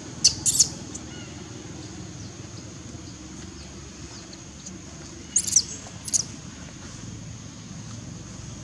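Short, sharp high-pitched chirping calls, twice just after the start and three times about five to six seconds in, over a steady low background rumble.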